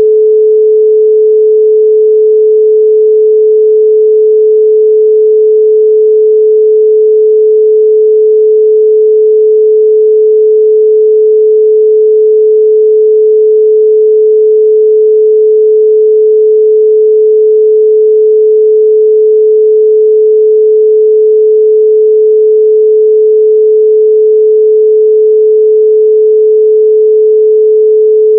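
A continuous 432 Hz pure sine tone, held at one steady pitch and loudness.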